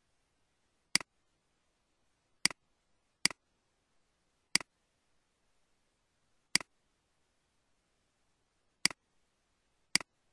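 Computer mouse button clicking, seven sharp clicks spaced unevenly, each a quick press-and-release double tick.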